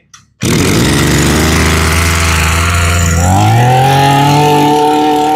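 Maruyama BIG M BK21 21cc brush cutter engine starting on a pull-start about half a second in, running at low speed, then revved up by the throttle about three seconds in and held at a higher, steady speed.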